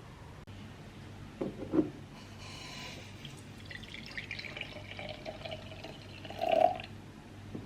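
Water running and trickling at a sink, with a few short knocks, one of them about a second and a half in and another near the end.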